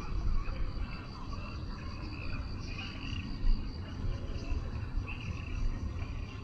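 Outdoor countryside ambience: insects chirping steadily over a low, uneven rumble, with scattered short chirps.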